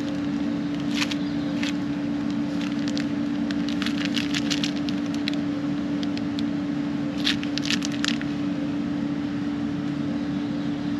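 Small parts being rummaged through in a metal drawer: bursts of clinking and rattling, about a second in, through the middle, and again past seven seconds, over a steady low hum.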